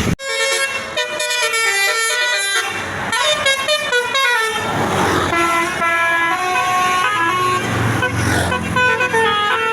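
Basuri telolet musical bus horn playing a quick melody of stepped, held notes, with fast runs of notes in the first couple of seconds.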